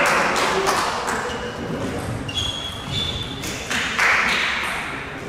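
Table tennis balls clicking off tables and bats in a large hall with several matches in play, with a brief squeak partway through and a short rush of noise about four seconds in.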